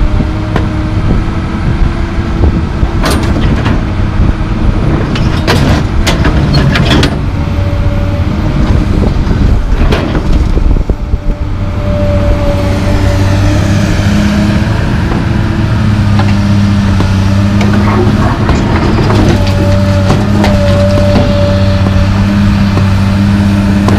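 Komatsu PC220LC track excavator's diesel engine running steadily under hydraulic load, with a higher whine that comes and goes. Several sharp knocks land in the first ten seconds, and the engine hum grows louder and steadier from about halfway through as the loaded bucket swings.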